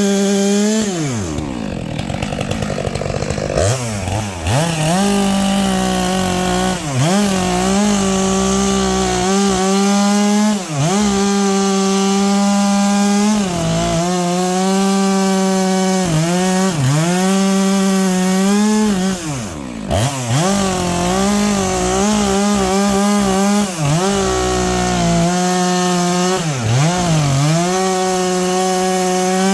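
Stihl MS 462 two-stroke chainsaw with a 25-inch bar and ripping chain, rip-cutting firewood along the grain at high revs. The engine pitch sags again and again as the chain bites into the wood, then climbs back. The deepest drop comes about a second in.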